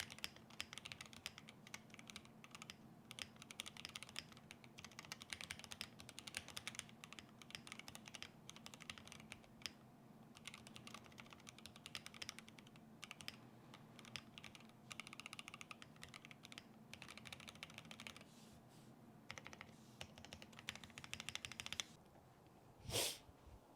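Rapid, continuous typing on a Glorious GMMK Pro custom mechanical keyboard with lubed Durock L7 linear switches on a polycarbonate plate. The keystrokes stop shortly before the end.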